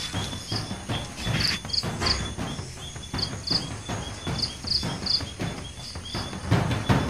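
Night insects chirping: a steady, fast run of short chirps at one pitch, with short higher chirps in groups of two or three about every second. Low, irregular rumbling sits underneath.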